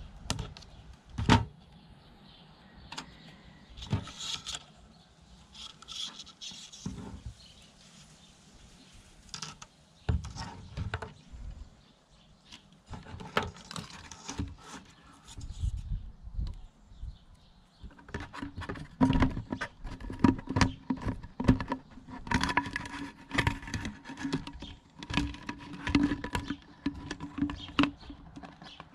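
Handling noise: irregular clicks, knocks and plastic crackles as a mini water pump, its silicone tubing, side-cutting pliers and a clear plastic bottle are worked and moved about on a desk. The clicks get denser in the second half, with a faint steady hum beneath them.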